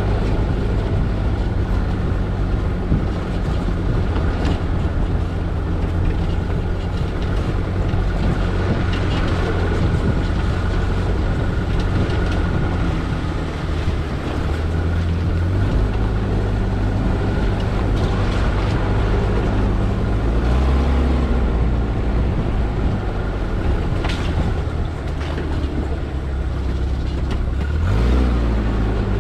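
Car driving on an off-road track: a steady engine drone under continuous road and tyre noise. The engine note shifts about halfway through, then rises twice, about two-thirds of the way in and near the end.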